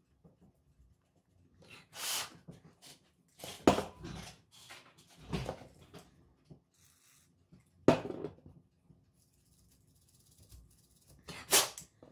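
Scattered handling noises from cleaning a small circuit board by hand: a few short hissy rubbing or scrubbing sounds and a few sharp knocks, with quiet gaps between.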